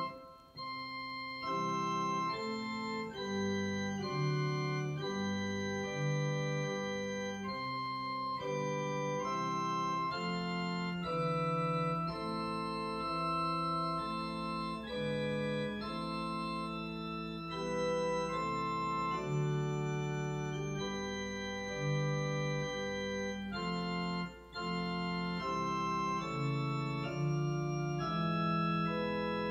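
Digital piano played with an organ voice: slow, held chords changing about once a second, with short breaks between phrases.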